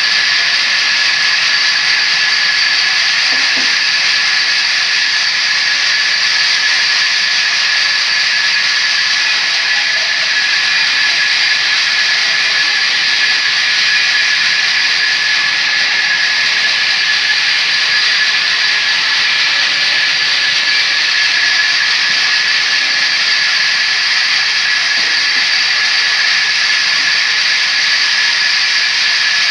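Vertical log band saw cutting lengthwise through a log as it is fed along the table. It makes a loud, steady high hiss with a constant high-pitched tone running through it.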